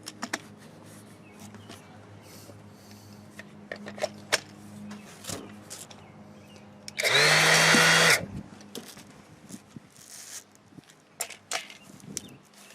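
DeWalt 20V MAX cordless orbital sander motor briefly switched on for about a second, about seven seconds in: it spins up with a rising whine, runs, then cuts off. Clicks and knocks from the tool being handled come before and after.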